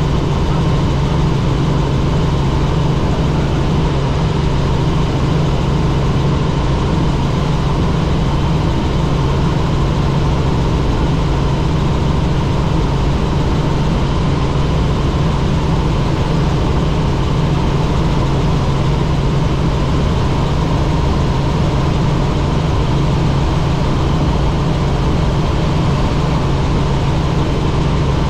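Helicopter in flight, its engine and rotor making a loud, steady drone with a strong low hum that does not change.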